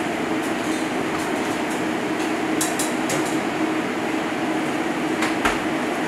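Steady hum and rush of commercial kitchen ventilation, with a few metallic clinks of utensils and steel containers in the middle and near the end.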